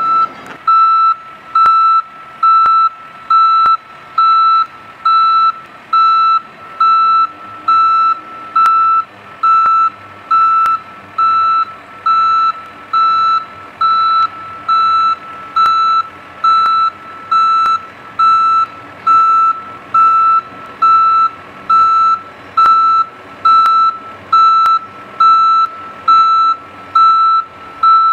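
Backup alarm of a John Deere skid-steer loader beeping steadily, about three beeps every two seconds, over the low running of the loader's engine.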